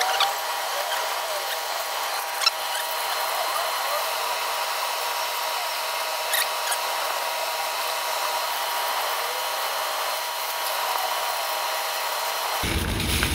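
Sped-up sound of a whole fish being wrapped in aluminium foil on a cutting board: a steady high-pitched hum with a few sharp foil crinkles and clicks.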